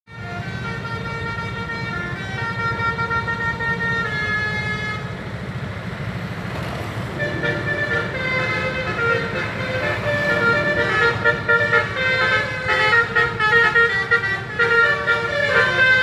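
Basuri musical air horns on tour buses playing a tune in changing notes over a low engine rumble. The first notes are held for a second or two each; from about eight seconds in the notes come quicker and louder.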